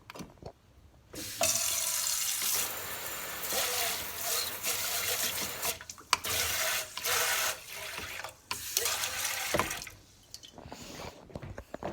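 Water splashing into a kitchen sink in several spells, starting about a second in and stopping near the end, with short breaks between them.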